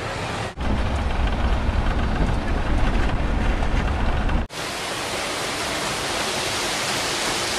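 Low rumble and road noise of a moving car, heard from inside the car. About four and a half seconds in it cuts off abruptly and gives way to a steady, even hiss.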